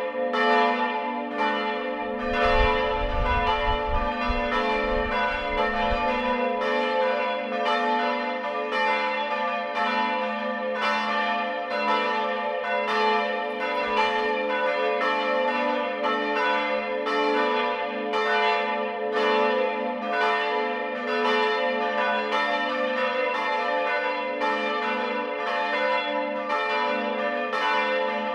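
Church bells ringing together in a full peal, their strikes following one another in an unbroken stream while the tones of several bells hang on between them. A brief low rumble sits under the bells from about two to six seconds in.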